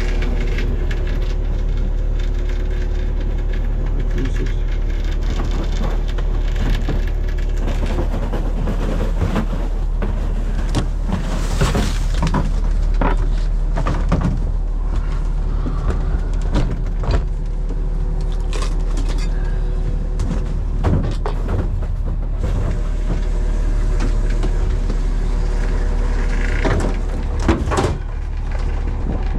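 A fishing boat's engine running steadily, with scattered knocks and clatters on top.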